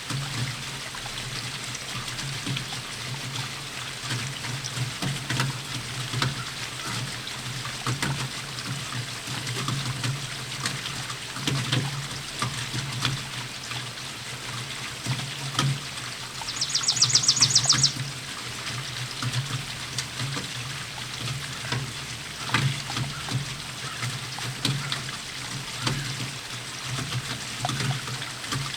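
Steady rainfall with drops landing close by in irregular ticks. About halfway through, a short, high, rapid trill cuts in for just over a second.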